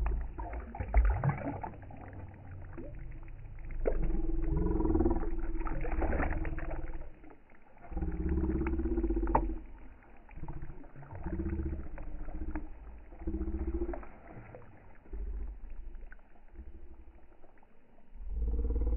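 Water splashing and slapping as a fish thrashes at the surface, with sharp splashes in the first half. Recurring low rumbling bursts with a humming tone come and go throughout.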